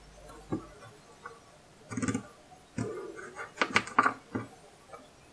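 Small kitchen knife cutting and paring pumpkin on a plastic cutting board: a handful of irregular knocks and short cutting scrapes.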